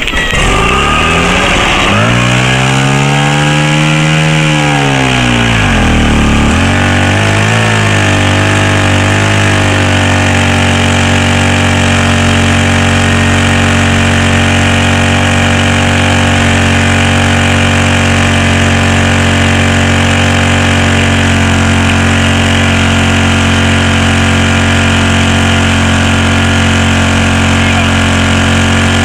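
Portable fire pump's petrol engine revving up: its pitch climbs to a peak about four seconds in, drops away around six seconds, wavers, then holds a steady high speed from about ten seconds on as it pumps water into the hoses.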